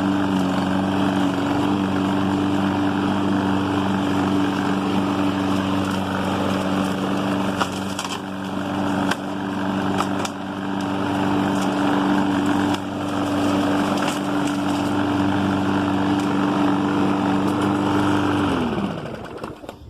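Husqvarna all-wheel-drive self-propelled lawn mower's engine running steadily at a constant speed while mowing, with a few sharp clicks in the middle. Near the end the engine is shut off, its pitch falling as it winds down to a stop.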